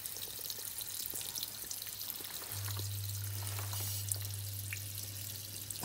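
Water hissing and dripping from a pinhole leak in a copper water supply pipe. A steady low hum joins it about two and a half seconds in.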